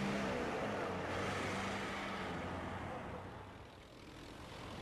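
Motor vehicle engine running with a steady low hum, fading away about four seconds in.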